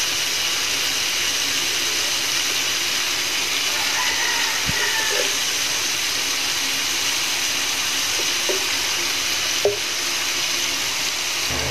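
Ground pork sizzling steadily in oil in a frying pan, an even hiss, with a few light clicks in the second half.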